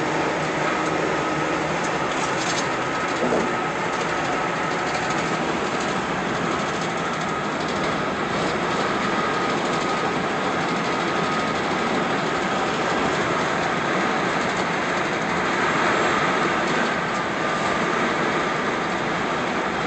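Steady road and tyre noise inside a moving car's cabin, the tyres running on concrete freeway pavement.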